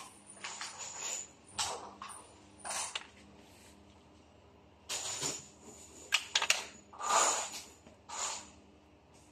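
Irregular light knocks, scrapes and rustles as a laminated wooden door panel is handled and fitted against a flat-pack shoe cabinet; the loudest scrape comes about seven seconds in.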